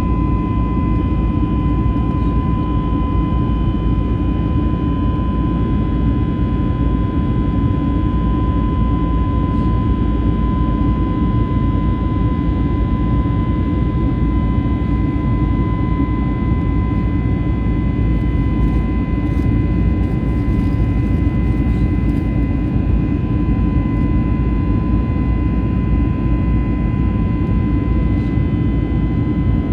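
Cabin noise inside an Airbus A321neo: a steady, loud rumble of engines and airflow with a constant high hum running through it.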